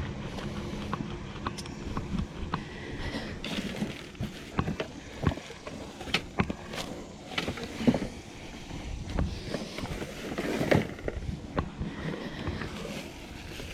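Rummaging through curbside trash by hand: rustling bags and items being shifted, with scattered irregular clicks and knocks, two of them louder past the middle.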